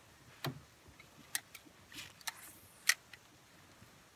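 A handful of short, sharp clicks and light knocks at uneven intervals, the loudest near the end, over faint background: handling noise of the recording phone rubbing and bumping against a jacket.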